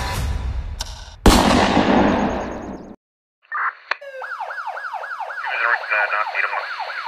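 Music breaks off into a single loud gunshot about a second in, its echo dying away over a second and a half. After a short silence, a police siren starts in a fast yelp, about three rising-and-falling sweeps a second.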